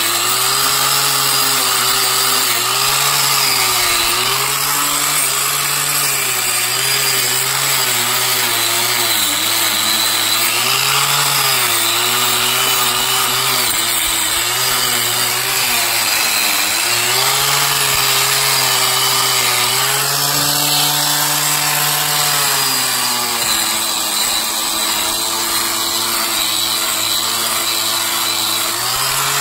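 Corded angle grinder running a screw-on rust-removal attachment, grinding surface rust off the steel of a Dana 60 front axle and tie rod. The motor's pitch sags and recovers over and over as the attachment is pressed onto the metal and eased off.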